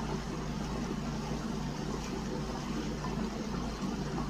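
Steady low mechanical hum with a hiss over it, running evenly with no break or change.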